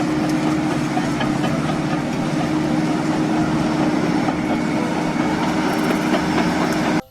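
Steady mechanical whirring with a constant hum, as from a small motor, cutting off suddenly near the end.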